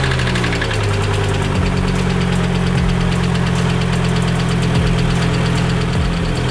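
Volvo 850's 2.5-litre 20-valve five-cylinder engine idling just after a cold start, its revs settling down over the first second or two and then holding steady. This is the first run after a new timing belt, idler pulley and tensioner pulley were fitted. There is an engine knock that the owners notice and cannot explain.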